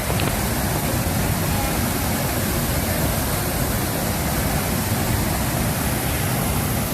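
Waterfall water rushing steadily over the limestone cascades of Stainforth Force on the River Ribble, an even, unbroken rush of falling water.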